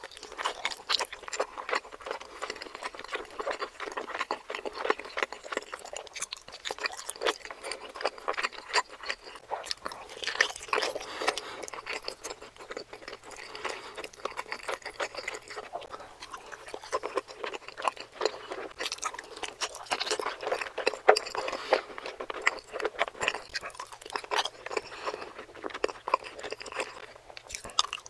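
Close-miked chewing of soft steamed dumplings: a continuous run of wet mouth clicks and smacks.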